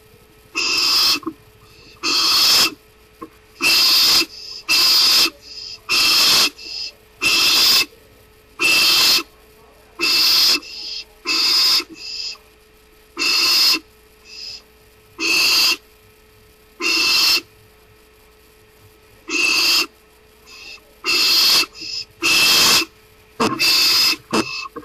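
Barn owl screeching: harsh, hissing calls about half a second long, repeated roughly every one to two seconds, some in quick pairs. A faint steady electrical hum runs underneath.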